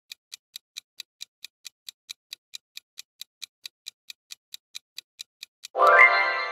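Countdown-timer sound effect: clock-like ticking, about four and a half ticks a second. Near the end the ticking stops and a loud ringing chime sounds and slowly fades, marking time up before the answer is revealed.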